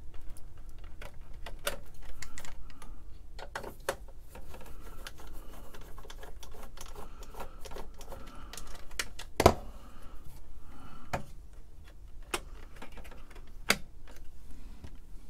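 Scattered light clicks and taps of hands working plastic wiring connectors and a screwdriver on a computer power-supply board and its metal chassis. One sharper knock comes a little past halfway, and a smaller one near the end.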